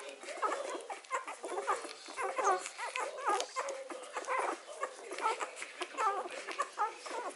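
Three-day-old Hovawart puppies squeaking and whimpering while they suckle, many short, high squeaks overlapping one another.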